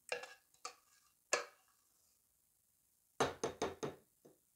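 A ladle knocking against a saucepan while cream is scooped out: three separate knocks in the first second and a half, then a quick run of about six knocks near the end.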